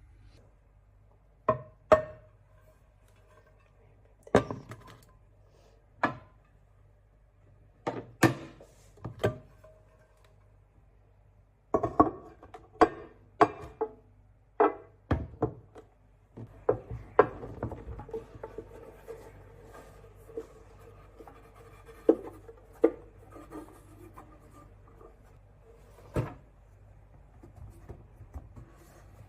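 Irregular knocks and clinks of household objects being handled and set down, some with a short ring. A faint steady hiss runs under them through the middle stretch.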